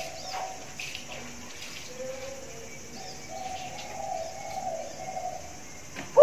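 Spotted dove cooing faintly: soft, drawn-out low notes in the second half, with a few faint short chirps above them.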